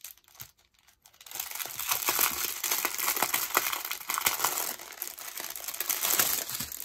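Clear plastic packaging, a strip of sealed bags of diamond painting drills, crinkling and crackling as it is handled in the hands. It starts about a second in and goes on steadily.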